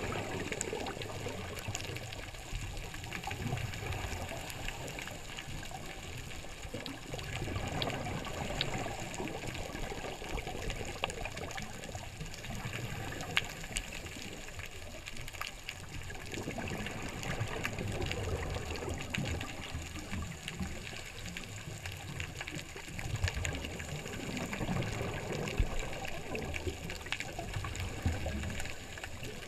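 Scuba diving heard from underwater: regulator exhalations, each a bubbling rush that comes back every few seconds, over a steady hiss with scattered faint clicks.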